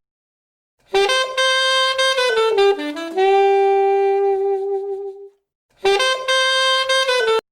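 A Huawei P30 lite ringtone: a short jazzy saxophone melody that ends on a long held note, then starts over about six seconds in and is cut off after a second and a half.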